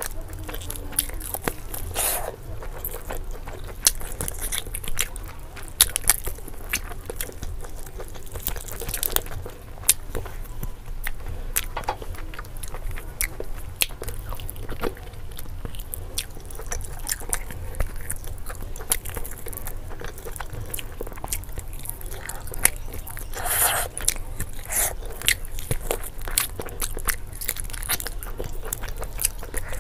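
Close-miked eating: biting and chewing meat off a chicken wing held in the hands, with many short sharp clicks and crunches throughout.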